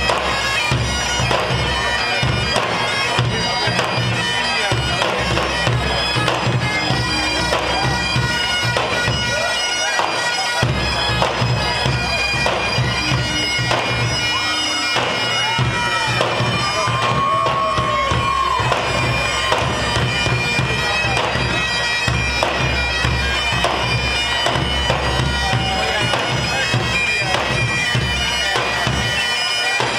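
Two sets of Highland bagpipes playing a tune over their steady drones, with large barrel drums beating a rhythm beneath. The drumming drops out briefly twice, about ten and fifteen seconds in.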